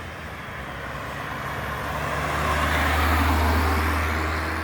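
A vehicle driving past on the road, its engine hum and tyre noise growing louder to a peak about three seconds in, then easing off.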